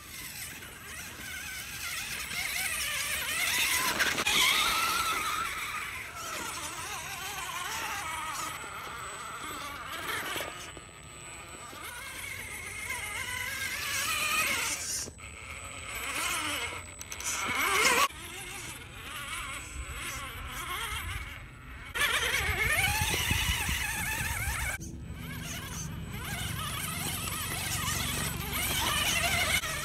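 Axial Wraith RC rock crawler's electric motor and geared drivetrain whining as it crawls over rock, the pitch rising and falling with the throttle and the whine stopping suddenly and starting again several times.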